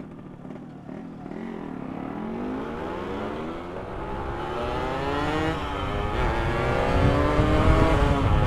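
Two-stroke motorcycle engine accelerating hard through the gears, its pitch climbing and dropping back at several gear changes, getting louder.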